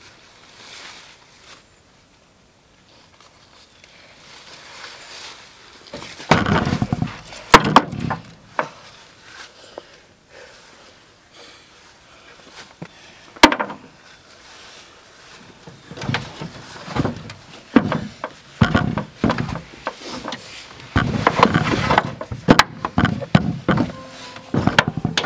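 Knocks, thumps and scraping on a pickup truck's ribbed steel bed as a field-dressed deer is hoisted in and pulled into place with a drag rope, starting after a few quiet seconds. One sharp knock comes about halfway through.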